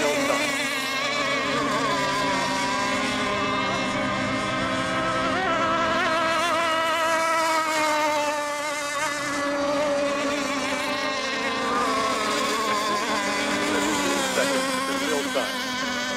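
Several radio-controlled racing boat engines running at once, a high, overlapping whine whose pitches rise and fall as the boats lap the course.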